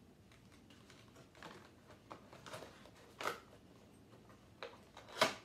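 Small clicks, taps and rustles of vinyl toy figures and their cardboard boxes being handled and set on a table, with a sharper knock about five seconds in.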